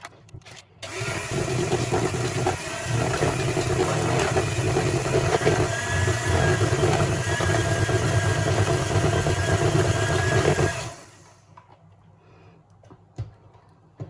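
Electric hand mixer starting about a second in and running steadily for about ten seconds as its beaters mix mashed bananas into cake batter, then switched off.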